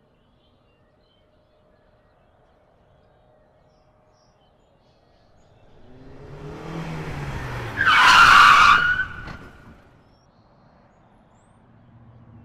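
Logo-sting sound effect: a rush that swells for about two seconds, peaks in a loud, short, high screech, and dies away about a second and a half later.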